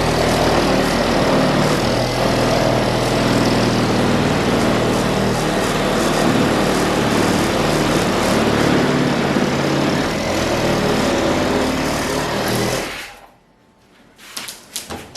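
A small engine or motor running steadily, then shutting off about 13 seconds in; a few sharp clicks follow near the end.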